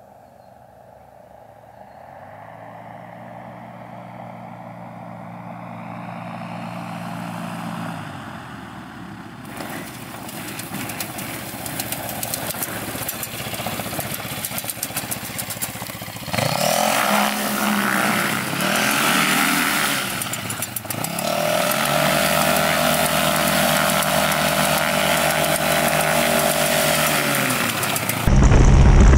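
Ultralight airplane's Yamaha Phazer snowmobile engine driving the propeller through a reduction gearbox, growing louder as the plane comes in at low power. After a cut it runs on the ground, revved up and throttled back several times, then held steady at higher power.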